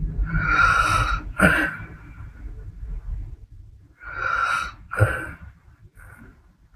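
A sleeping woman snoring: a long raspy breath that ends in a sharp snort about a second and a half in, a quiet pause, then another rasping breath and snort around four to five seconds in.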